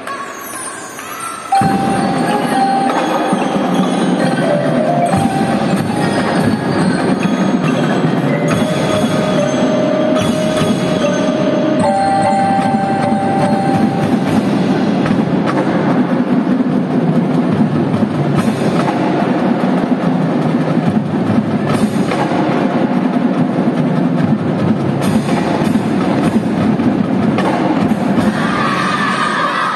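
Marching band music led by front-ensemble marimbas and other mallet percussion, with long held notes above them. The full ensemble comes in suddenly about a second and a half in.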